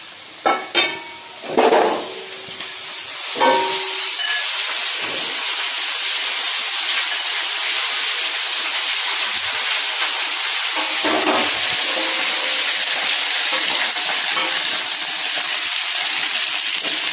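Raw papaya pieces going into a kadai of hot mustard oil with frying yam and potatoes: a few clinks and knocks at first, then a loud steady sizzle of the vegetables frying from about three and a half seconds in.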